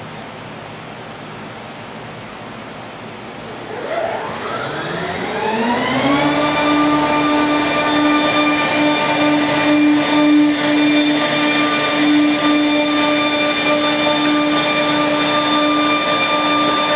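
Holz-Her Spirit 1416 edgebander's motors starting up: about four seconds in, a whine rises in pitch over some two seconds, then holds as a steady machine whine. A steady hiss runs underneath before the start-up.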